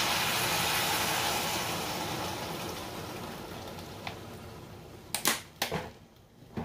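Water poured from a plastic bottle into a hot pan of cabbage, hissing and sizzling, then fading away over about four seconds. Two sharp knocks come near the end.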